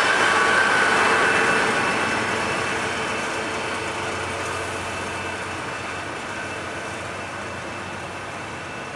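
DB class 218 diesel-hydraulic locomotive passing and moving off, its engine whine strongest at first and fading after about two seconds. Then the Intercity coaches roll by with a steady rumble that keeps getting quieter.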